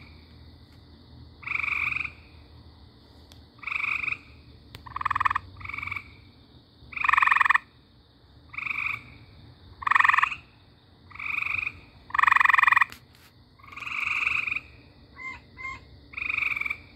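A frog calling over and over: short calls, each under a second long, repeated roughly every second and a half, with a couple of fainter clicks near the end.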